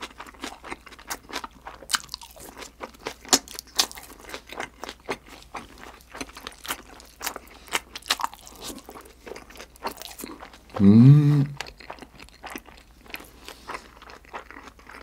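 Close-miked chewing of sauce-glazed grilled freshwater eel: steady wet mouth clicks and smacks. About eleven seconds in there is a brief hummed vocal sound from the eater, the loudest moment.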